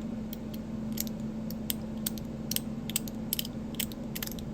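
Non-magnetic zirconium fidget slider, fitted with one ceramic and one Teflon plate, being slid back and forth by hand, giving light, irregular clicks several times a second.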